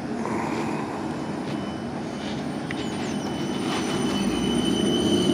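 Electric train running on the rails, a steady rumble with a thin high tone coming in about halfway. It grows louder toward the end, with a whine rising in pitch.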